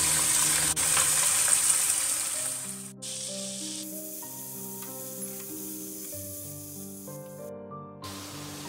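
Sliced onions dropped into hot oil in a pot, sizzling loudly. After about two and a half seconds the sizzle falls to a much quieter, steady fry under background music.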